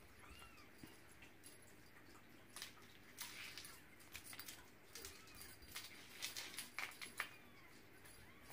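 Faint clicks and scuffles of a Ragdoll kitten pouncing at a feather wand toy on a hard floor, mostly in a cluster through the middle.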